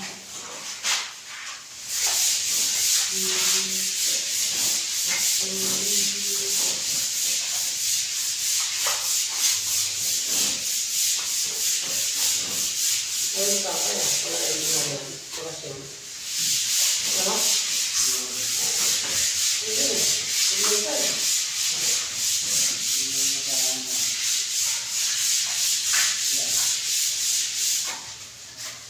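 Abrasive sanding or rubbing on a surface in fast back-and-forth strokes, a steady scratchy hiss. It pauses briefly near the start, about halfway through, and near the end.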